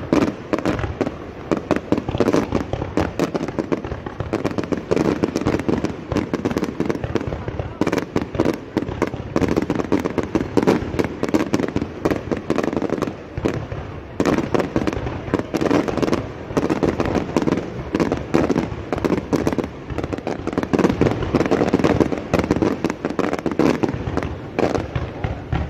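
Aerial fireworks display: shells bursting in a dense, almost unbroken run of bangs and crackles.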